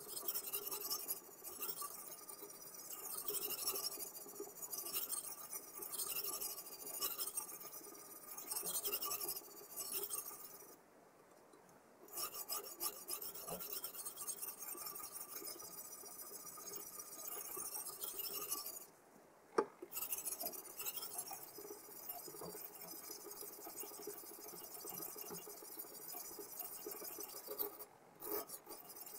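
A sharpening stone on a guided sharpening system is drawn in repeated rasping strokes along the edge of an M390 steel chef's knife, grinding the bevel. The strokes stop briefly twice, and a single sharp click falls in the second pause.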